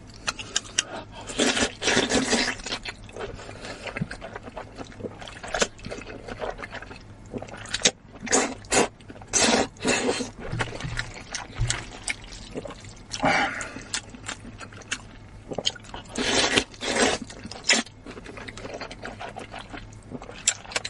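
Close-up slurping and wet chewing of wide flat noodles in sesame sauce, in irregular short bursts with sharp clicks of the mouth.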